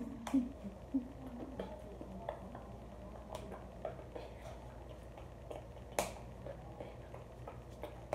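Quiet close handling noises: a few light, scattered clicks and taps, the sharpest about six seconds in, over a faint steady low hum.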